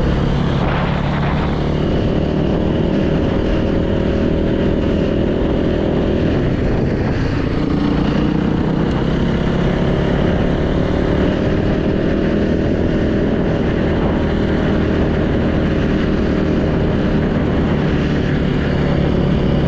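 Yamaha YZ450 four-stroke single-cylinder dirt bike engine running steadily while the bike is ridden at low speed.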